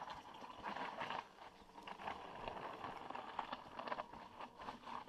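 Mountain bike tyres rolling and crunching over dry, loose gravel and rock on a steep descent, with irregular small clicks and rattles from the bike.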